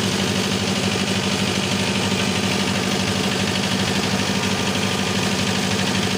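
An engine running steadily at idle, a constant hum with no change in speed.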